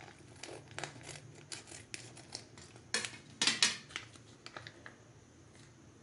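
Scissors snipping open a plastic popcorn packet, a run of short crisp cuts with the packet crinkling in the hand. The loudest crinkling comes about three seconds in.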